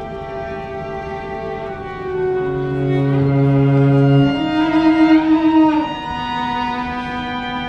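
Violin and cello playing long held notes together in a slow contemporary chamber piece. A low cello note sounds in the middle, and around five seconds in the music swells and slides upward before settling on sustained tones.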